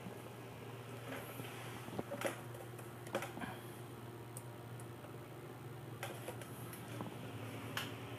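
Scattered light clicks and small knocks from hands handling the opened amplifier and its cables, over a faint steady low hum.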